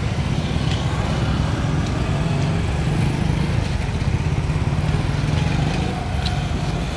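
Roadside traffic: motorcycles and a van passing, with a steady low engine rumble and a faint falling engine note about five seconds in.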